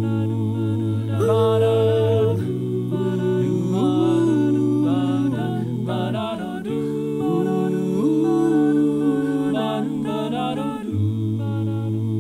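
One man's multitracked a cappella voices singing wordless sustained harmony: a low bass voice holds long notes, shifting pitch a few times, under held chords in the upper parts.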